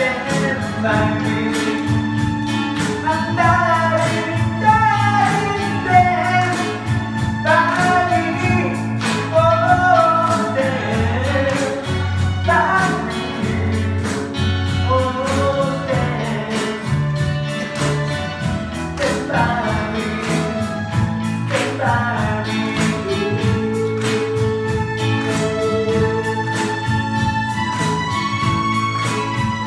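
Live band playing a song: a man sings the melody into a microphone over guitars and a steady bass line. In the last several seconds the singing stops and an instrument carries the melody in held notes.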